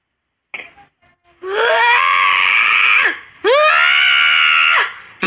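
A tortoiseshell cat yowling loudly: two long, drawn-out cries, each sweeping up in pitch at the start and then holding, with a third beginning at the very end.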